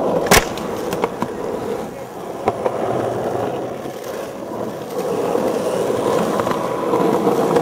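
A sharp skateboard clack about a third of a second in, then skateboard wheels rolling steadily over rough asphalt, with a few light clicks along the way.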